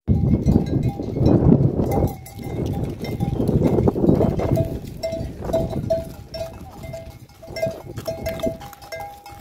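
Livestock bells clinking, with quick, short, repeated rings from about a second and a half in that grow more frequent toward the end. A loud low rumble fills the first few seconds.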